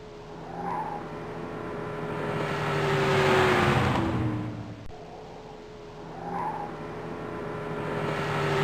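A car driving past: tyre and engine noise swells to a peak about three seconds in and fades as the engine's pitch drops. The same pass-by begins again and is swelling near the end.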